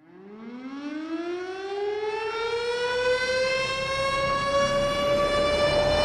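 A siren-like wail winding up: one tone rising slowly in pitch as it fades in from silence and swells in loudness.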